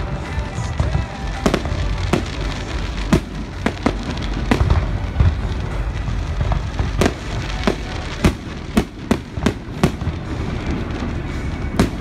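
Fireworks display: aerial shells bursting in a run of sharp bangs over a steady low rumble. The bangs come thickest and fastest between about seven and ten seconds in.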